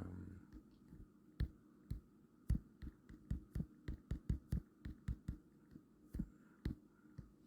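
Fingers tapping out a password, a quick irregular run of about twenty soft taps with a dull knock to each, over a faint steady hum.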